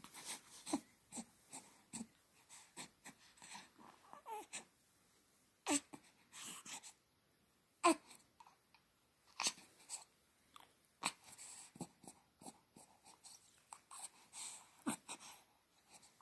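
A young baby's short coos and grunts, a few of them sliding down in pitch, with breathy sounds and small mouth noises in between.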